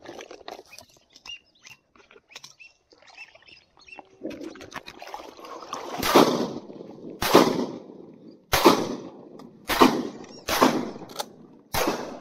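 Shotgun fired with 3.5-inch magnum shells while standing in shallow swamp water, mixed with heavy splashing and sloshing as the recoil knocks the shooter off his feet into the water. Quiet wading sounds at first, then sloshing, and in the second half a run of about six sharp, loud bangs and splashes roughly a second apart.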